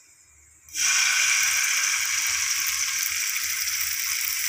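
Wheat-flour batter sizzling as it is poured into a hot, ghee-greased non-stick pan. The sizzle starts suddenly under a second in and then holds steady.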